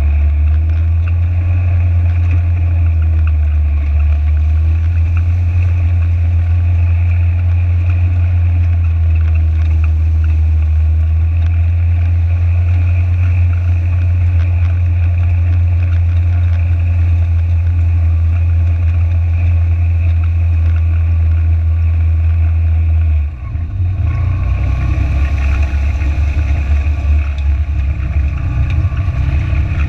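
Side-by-side UTV's engine running with a steady low drone as the vehicle drives through a flooded, fast-flowing creek. About three quarters of the way in, the engine note dips briefly and then runs rougher.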